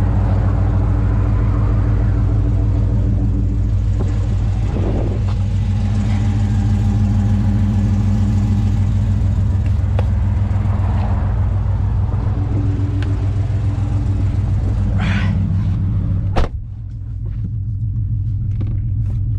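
Dodge Challenger 392's 6.4-litre HEMI V8 idling steadily through a Flowmaster exhaust, a deep, even rumble. About sixteen seconds in, a car door shuts with a single knock, and the idle then sounds muffled from inside the cabin.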